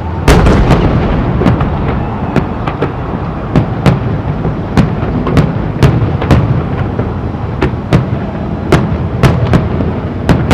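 Aerial fireworks shells bursting: sharp bangs about two a second over a continuous rumble of overlapping detonations, with a heavy cluster of bursts at the start.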